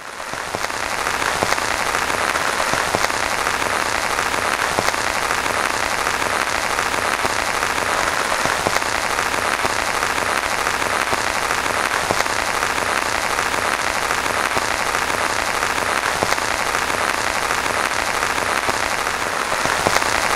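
Heavy monsoon rain falling steadily, a dense hiss of countless drops splashing on water and ground. It fades in over about the first second.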